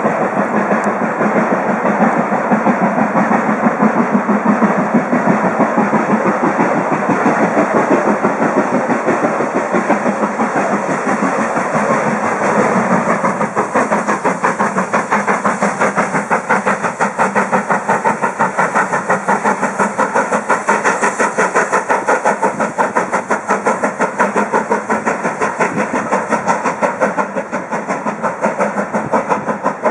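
Steam locomotive working hard with a rapid, steady beat from its chimney exhaust, over the rumble of its train of coaches.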